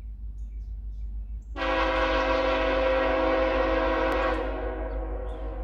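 Air horn of an approaching BNSF coal train's lead locomotive, sounding one long multi-note blast that starts about a second and a half in, holds for nearly three seconds, then cuts off and dies away. A low steady rumble runs underneath.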